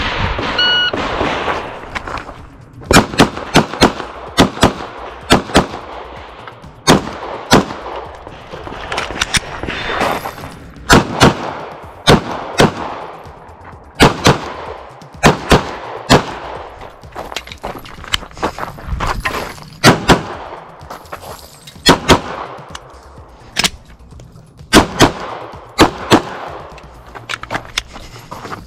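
Electronic shot-timer start beep about half a second in, then a 9mm Glock 48 pistol firing many shots, in quick pairs and short runs with gaps between them.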